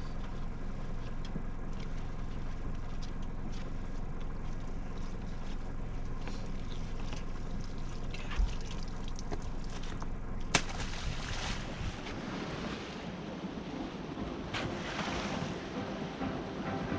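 Sailboat under way: a steady low engine hum mixed with water and wind noise. About ten seconds in there is a sharp click, after which the hum fades and the rush of water and wind comes forward.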